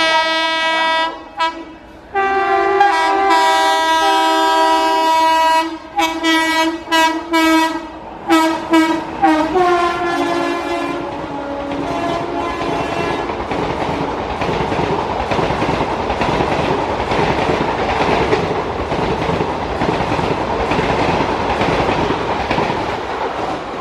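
WAP-4 electric locomotive's twin-tone horn: one long blast, then a string of short honks that drop slightly in pitch as it passes. The ICF coaches of the express then run through at speed with steady rushing and wheel clatter.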